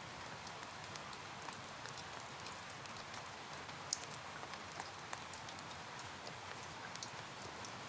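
Steady rain hiss with many small scattered ticks, and one sharper tick about four seconds in.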